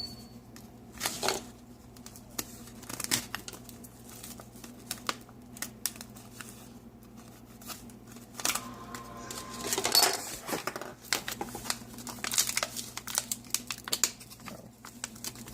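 Coffee bag being handled and opened, its packaging crinkling and rustling in irregular crackles and clicks, busiest a little past the halfway point.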